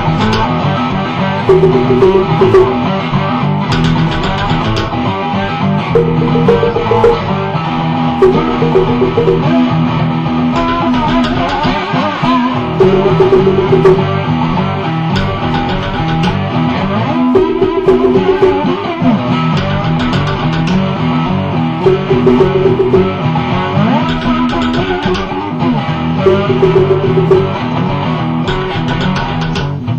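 Cigar box guitar played in an improvised jam, plucking and strumming a loose riff whose held high note comes back about every four to five seconds.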